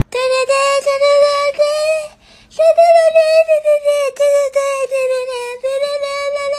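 A high voice-like sound held on nearly one pitch, in two long stretches with a short pause about two seconds in.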